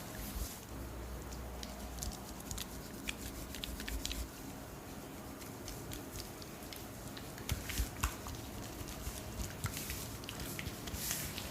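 Oiled hands massaging skin: a soft wet rubbing with many scattered small clicks and squelches, a few louder ones about two-thirds of the way through.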